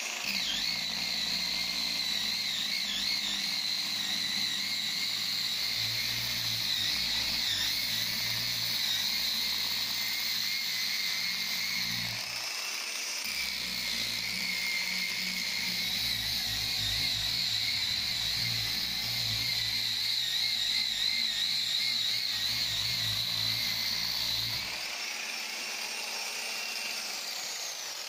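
Angle grinder with a felt polishing pad, set to its second speed, buffing Venetian plaster to a gloss: a steady, slightly wavering high whine over a low motor hum. It dips briefly about twelve seconds in and eases off about three seconds before the end.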